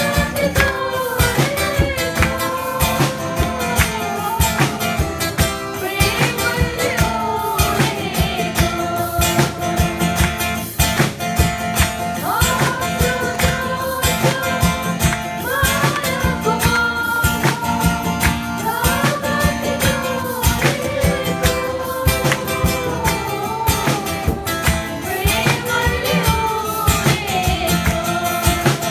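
Music: singing over guitar and a steady beat.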